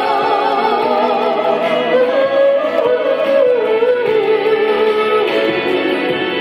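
Gospel song: a singer holds a long note with vibrato, then steps down in pitch through a run, over steady instrumental backing.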